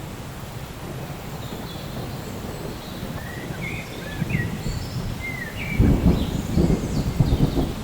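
Rain ambience with a low rumble of thunder that swells about six seconds in, and birds chirping over it in short high notes.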